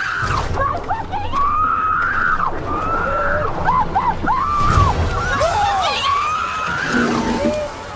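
Several people screaming, overlapping cries that rise and fall, over a low rumble of churning water.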